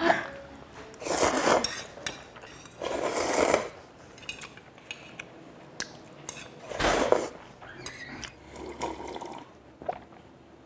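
Close-miked eating at the table: three short, noisy slurps from a porcelain soup bowl, about one, three and seven seconds in, with light clinks of chopsticks and china in between.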